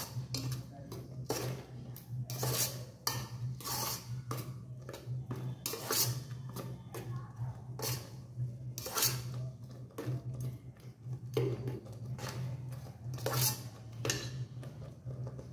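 Metal slotted spoon stirring cooked vermicelli and jaggery in an electric rice cooker's metal inner pot, scraping and clinking against the pot's sides in irregular strokes about one to two a second, over a low steady hum.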